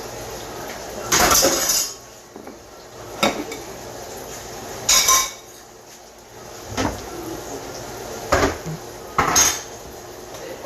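Kitchen utensils clattering against pans and dishes: about six separate knocks and scrapes, the longest about a second in and halfway through.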